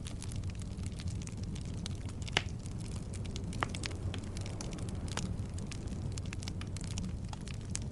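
Wood logs burning in a fireplace: a steady low rumble of flames with frequent sharp crackles and pops, two louder pops about two and a half and three and a half seconds in.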